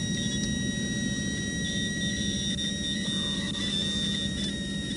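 Steady idling engine drone, with a thin, steady high-pitched whine above it.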